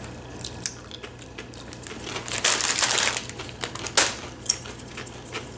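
Rancheritos corn chips being bitten and chewed, a crisp crunching made of irregular sharp cracks, with a denser stretch of crunching about two and a half seconds in and a sharp crack near four seconds.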